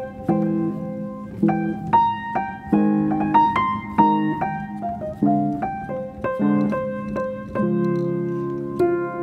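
Background piano music: a slow melody over chords, each note struck and fading.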